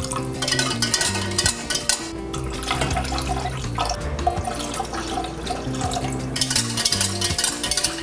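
Milk being poured into a stainless steel saucepan and stirred with a wire whisk, a liquid splashing and swishing sound, under steady background music.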